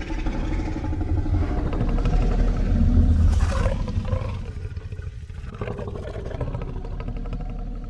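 Creature roar sound effect for a dinosaur-like monster: a long, deep, rumbling roar that swells to its loudest about three seconds in with a brief shriller cry on top, then eases into a lower growl.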